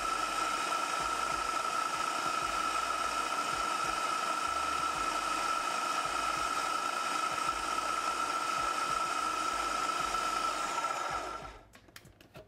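Countertop food processor running steadily with a high motor whine, chopping nuts and dates into a sticky crust dough; the motor cuts off shortly before the end.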